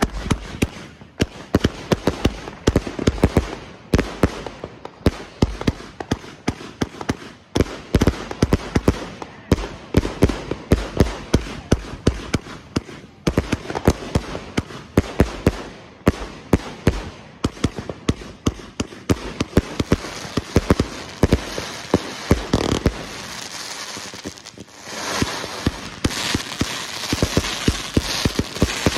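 Neo 200-shot firework cake firing in rapid succession: a continuous string of sharp launch thumps and bursting shots, several a second. From about 25 seconds in, a steady hiss builds under the shots.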